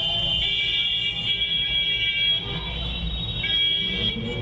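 Busy street traffic: a low, steady rumble of engines, with several shrill, held high-pitched horn tones sounding over it and changing pitch a few times.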